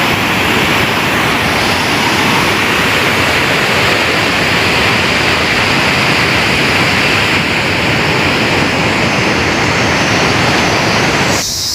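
River water rushing over rapids: a loud, steady roar of water that cuts off suddenly near the end.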